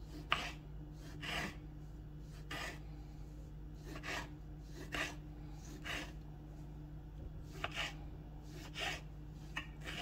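Small kitchen knife slicing cherry tomatoes in half on a wooden cutting board: a short cut through skin and flesh ending on the board roughly every second.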